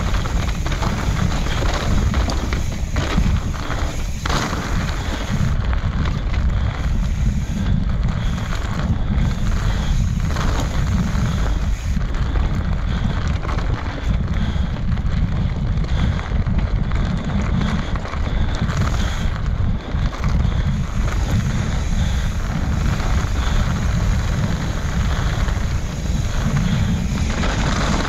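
Wind buffeting the microphone on a fast mountain bike ride, a steady low rumble, with scattered clicks and rattles from the bike and tyres running over rough dirt trail.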